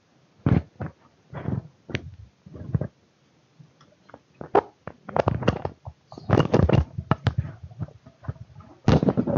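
Handling noise close to the microphone: an irregular run of loud knocks, bumps and rustles, sparse at first and coming thick and fast from about halfway through.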